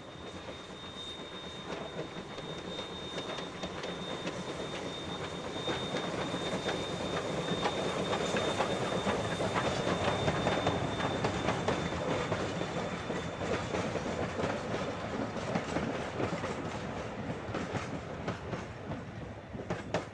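A train passing by, its wheels clicking over the rail joints. It grows louder to a peak about halfway through, then fades away.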